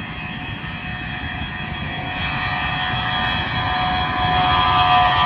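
Airbus A320-212 airliner's CFM56 jet engines at takeoff thrust during the takeoff roll: a steady rumble with several whining tones, growing louder as the aircraft approaches.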